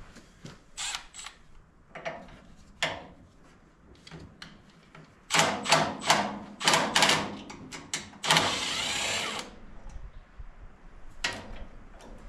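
Tools working on a utility vehicle's metal frame: scattered metal clicks and knocks, a run of sharp clanks around the middle, then a steady burst lasting about a second.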